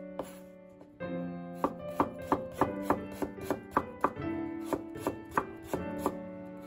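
Kitchen knife thinly slicing peeled fresh ginger on a wooden cutting board: quick, even knife taps on the board, about three a second, starting about a second in, over background piano music.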